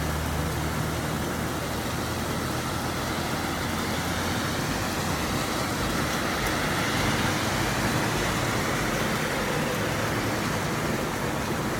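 Rain with road traffic: a steady hiss of rain and tyres on a wet road. A low engine hum fades in the first second or two, and a vehicle's tyre hiss swells and fades in the middle.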